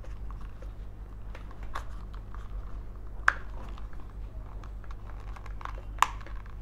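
Small plastic clicks and rustling as a wiring harness and its plastic fuse box are handled, with two sharper clicks, about three seconds in and near the end, over a steady low hum.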